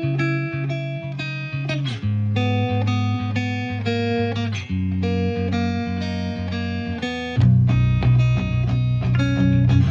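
Background music: plucked guitar playing a melody over a bass line, with the bass growing fuller and louder about seven and a half seconds in.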